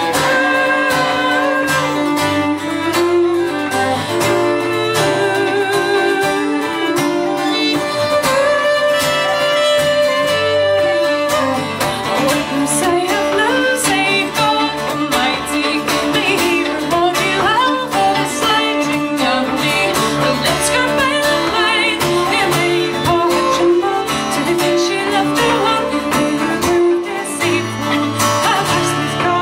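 Instrumental break of a folk song: a fiddle plays the melody with vibrato over a steady plucked acoustic guitar accompaniment.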